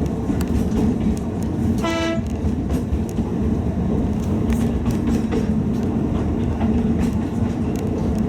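Narrow-gauge Alishan Forest Railway train running along the track, with a steady rumble and wheels clicking over rail joints. The horn gives one short toot about two seconds in.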